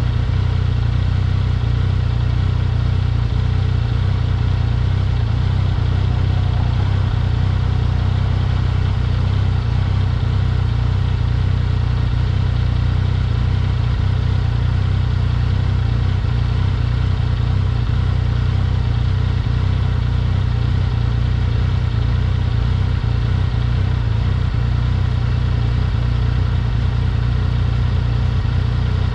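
Yamaha XSR900 motorcycle's three-cylinder engine running at a steady, unchanging pitch, a low rumble.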